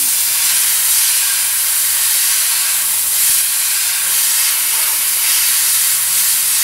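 Gravity-feed airbrush with a 0.3 mm needle spraying acrylic primer: a steady hiss of compressed air and paint mist, held without a break.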